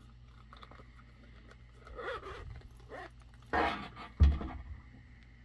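Handling noises from a hard-shell carrying case: a few faint clicks, scraping about two seconds in, a short rasp, then a sharp thump as it is set down.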